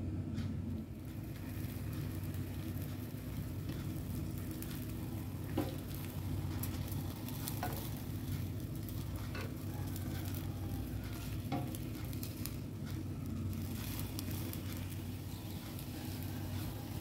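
Egg omelette sizzling in a square frying pan on a portable gas stove while it is rolled up with wooden chopsticks. A steady crackling hiss runs throughout, and the chopsticks click sharply against the pan a few times.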